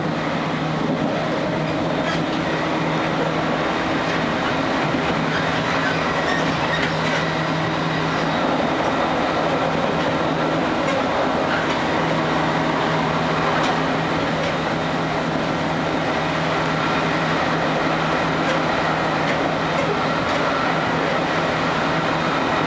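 JR Kyushu 813 series (200 subseries) electric train heard from inside the car while running at a steady pace: an even rumble with a constant low hum and a few faint clicks of the wheels over rail joints.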